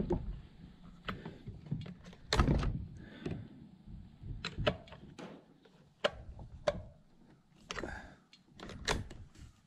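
Scattered metal clicks and knocks of a T-handled wrench being fitted to and worked on a chainsaw's bar nut, with one louder knock about two and a half seconds in.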